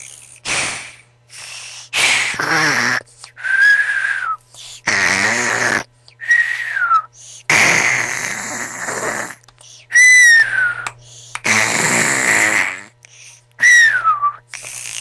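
A person snoring over and over: rattling snores, each followed by a short whistle that slides down in pitch, about four cycles.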